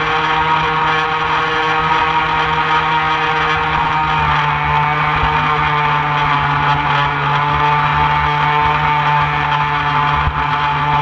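Radio-controlled model boat's motor running steadily at speed, a whine made of several steady tones that shifts a little in pitch about four seconds in, heard close up from on board with water splashing along the hull.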